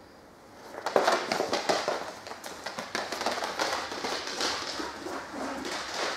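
Boot footsteps on a concrete floor together with a dog's claws clattering on the concrete as it runs, a rapid run of clicks and knocks starting with a loud clatter about a second in.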